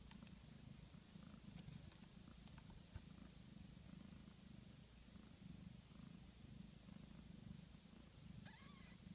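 Mother cat purring faintly and steadily beside her newborn kittens, the low drone swelling and easing with her breathing. Near the end there is one short, high-pitched mew.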